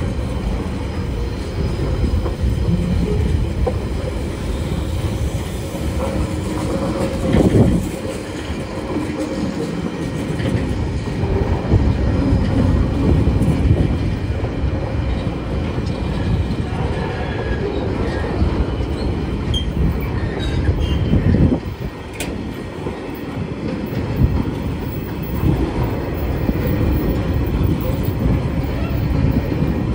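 Freight train wagons rolling past close by: a steady rumble and clatter of steel wheels on the rails, with a few louder bangs along the way.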